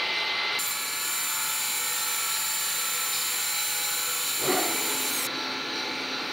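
Metal lathe turning a valve seat blank: steady machine hum under a high hiss of cutting. The hiss starts about half a second in and stops about five seconds in, with a short knock just before it ends.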